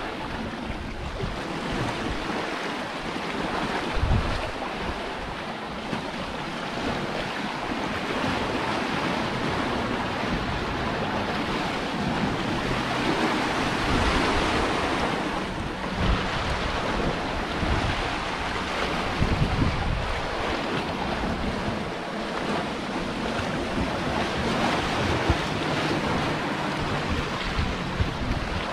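Sea surf washing against a rocky cliff shore, with wind buffeting the microphone in a few gusts.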